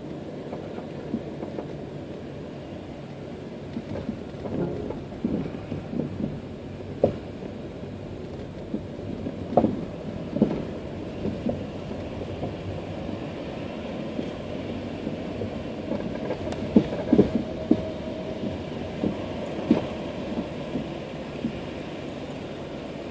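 Car cabin noise while creeping forward in a queue of traffic: a steady running hum with irregular knocks and thumps scattered through most of it, the loudest in the middle and near the end.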